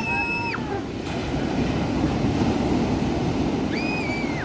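Steady rumbling, rushing noise, with a brief high-pitched held call at the start and another near the end.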